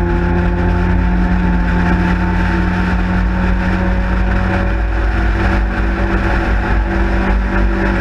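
Race car engine of a Sprite/Midget-class racer heard from its open cockpit, running hard at high revs with its pitch held nearly level the whole time, under a low rumble of wind and road noise.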